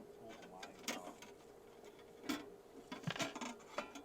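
A few sharp clicks and knocks spread over the seconds, as of small parts or tools being handled, over a faint steady hum.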